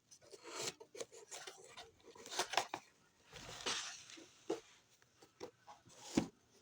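Packaging being handled and opened for unboxing: irregular rustling and scraping with light taps and clicks, and a sharper knock near the end.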